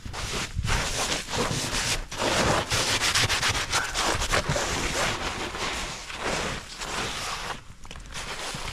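Rapid, repeated scraping and brushing strokes through snow as it is cleared by hand.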